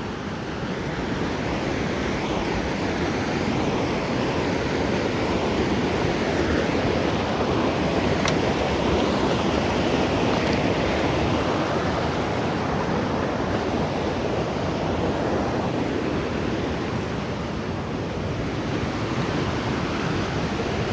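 River water rushing over stones, a steady even rush.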